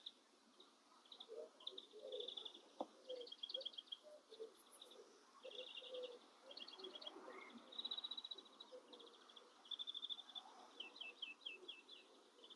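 Faint songbird song: a long run of short, fast chattering trills, phrase after phrase with brief gaps. A single sharp click about three seconds in.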